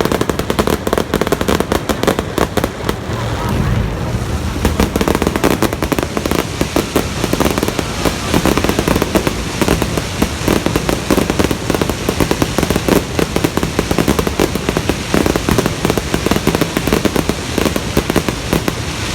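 Fireworks display in a dense, continuous barrage: many bangs and crackles a second over a steady low rumble, with no let-up.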